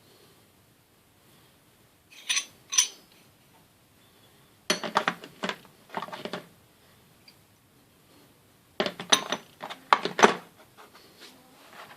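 Metal hand tools from a car repair tool kit clinking and clattering together as they are handled, in three short bursts of knocks.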